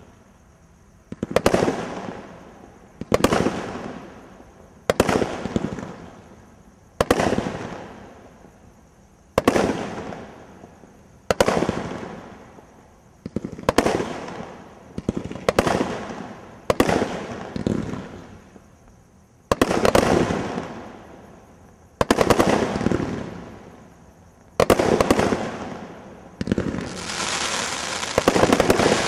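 Minefield 21-shot firework cake (single-ignition barrage) firing: a sharp bang about every two seconds, each followed by crackling that fades away. Near the end the crackling turns denser and lasts longer.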